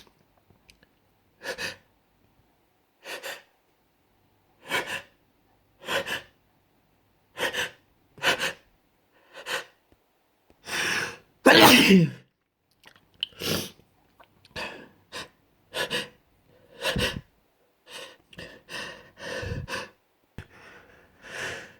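A person in a sneezing fit: a long run of short sneezes, one every second or so, with quick breaths between them. The loudest and longest sneeze comes a little past halfway.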